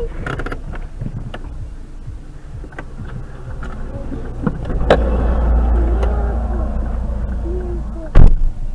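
Dash-cam audio of a heavy lorry passing close alongside the stopped car, a deep rumble building from about four seconds in, followed about eight seconds in by a single loud, sharp thump.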